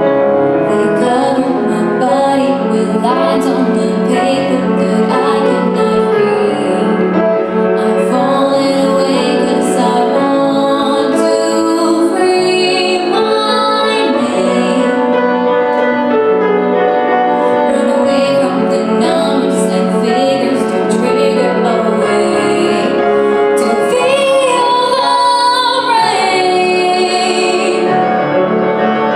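Music: a female voice singing a pop song over piano accompaniment.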